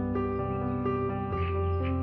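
Calm instrumental background music of held notes that change every half second or so, with faint bird chirps over it.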